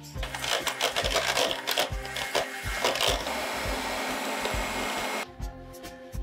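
Electric hand mixer with twin wire beaters whipping cold cream in a plastic measuring jug: a steady motor whir with a faint whine, stopping suddenly about five seconds in.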